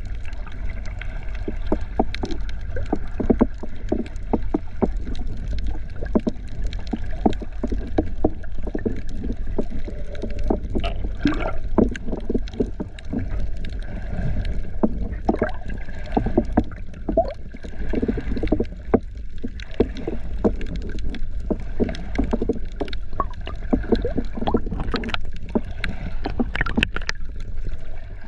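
Water splashing and sloshing close to the microphone in many irregular small crackles and pops, over a steady low rumble.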